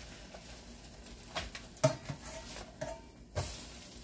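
French toast sizzling softly in an electric skillet while a spatula turns the slices, knocking and scraping against the pan about four times in the middle.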